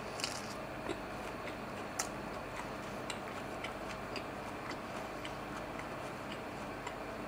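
A person chewing a mouthful of pan-fried Pacific saury patty with the mouth closed: faint, irregular little clicks and ticks, over a steady low background hum.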